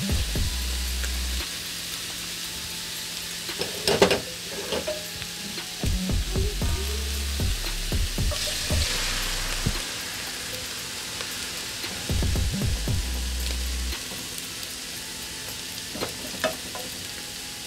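Chopped pineapple, mango, tomato and sweet pepper sizzling in hot oil in a frying pan as they are tipped in and stirred with a spatula. A sharp knock comes about four seconds in, and the sizzle swells briefly about halfway through.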